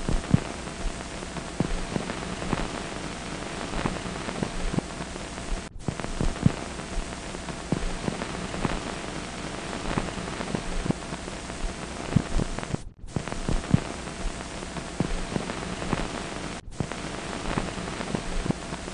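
Surface noise of an old film soundtrack: a steady hiss full of crackles and pops over a low hum. It cuts out for an instant three times.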